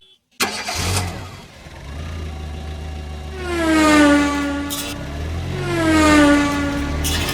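Racing car engine sound effect: two cars pass by in turn, each engine note swelling in loudness and falling in pitch as it goes past, over a low steady rumble.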